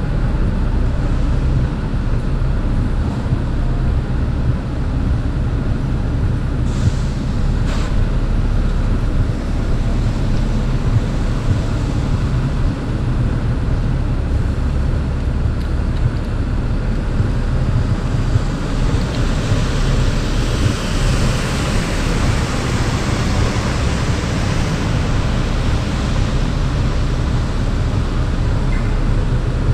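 Rainy city street: a steady low traffic rumble, with a vehicle passing on the wet road about two-thirds of the way through, its tyres hissing as it swells and fades.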